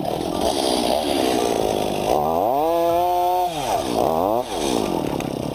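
Two-stroke chainsaw running at high revs, cutting wood; its engine pitch sags and recovers about two seconds in, then dips briefly again near four seconds.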